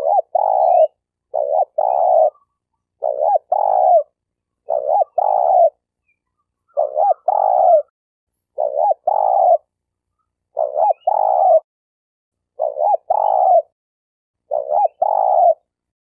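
Spotted dove cooing: a repeated phrase of a short note and a longer note, about one phrase every two seconds.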